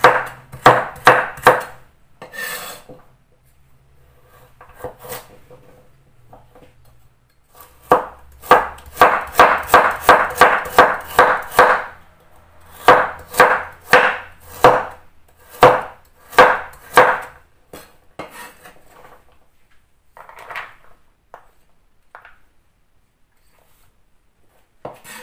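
Kitchen knife chopping carrots on a wooden cutting board in runs of sharp, even knocks. One quick run comes at about three strokes a second, then a slower one at about two a second, with quiet gaps between them.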